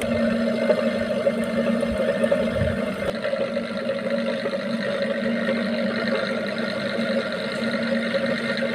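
A steady mechanical hum with two constant low tones running unchanged throughout.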